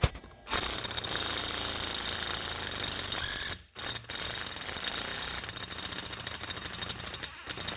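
A power wrench running in two long bursts on a bolt welded to a broken stud, turning the stud out; the second burst turns into a rapid clicking toward the end.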